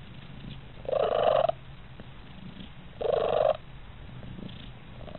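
Siamese-type cat purring close up: a steady low purr, with two louder, harsher swells about two seconds apart.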